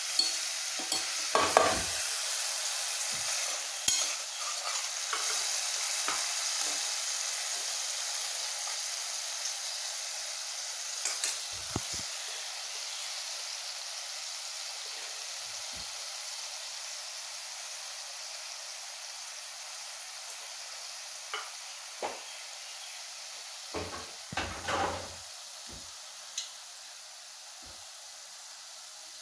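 Red sauce sizzling in a metal pan, a steady hiss that slowly fades, with a few short knocks and scrapes of a utensil against the pan, the loudest near the start and about three-quarters of the way through.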